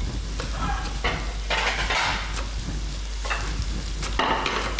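Chef's knife chopping parsley on a cutting board, a run of short irregular knocks. Under it runs the steady sizzle of sliced kohlrabi cooking in butter and stock in a frying pan.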